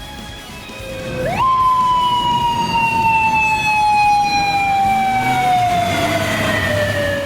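Japanese police motorcycle siren giving one wail: the pitch shoots up about a second in, then sinks slowly over some six seconds before cutting off near the end.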